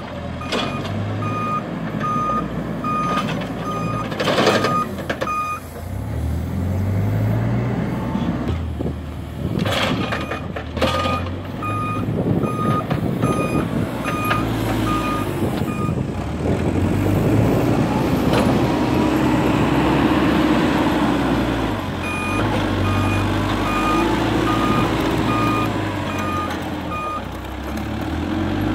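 Cat 432F backhoe loader's diesel engine running and revving while loading manure, its reversing alarm beeping at about two beeps a second in three spells as the machine backs up. A few sharp knocks from the working loader come in between.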